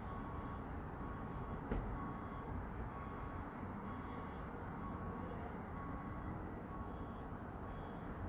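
A vehicle's reversing alarm beeping about once a second, a short high beep each time, over a steady low rumble of background noise. A single sharp click a little under two seconds in.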